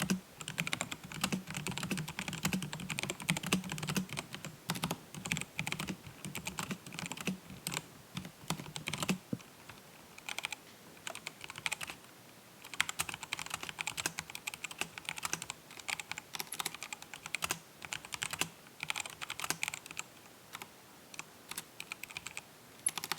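Fast typing on a Sharkoon SGK1 mechanical keyboard with tactile Kailh Brown switches: a dense, irregular run of key clicks and keycap clacks, in bursts with brief pauses.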